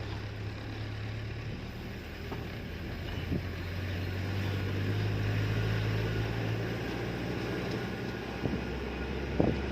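An engine running steadily, a low hum that swells a little in the middle, with a brief knock near the end.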